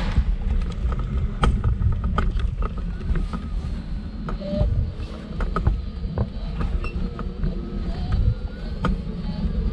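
Wheelchair wheels rolling over stone paving slabs: a steady low rumble with irregular clicks and knocks as the wheels cross the joints and rattle the frame.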